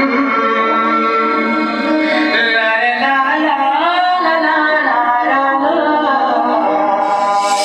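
A song with melodic singing over a sustained accompaniment, played through a DJ PA system (Ahuja SWX1300DX bass bins and DJPlus DRX525 tops) as a sound test. There is little deep bass in this part of the song.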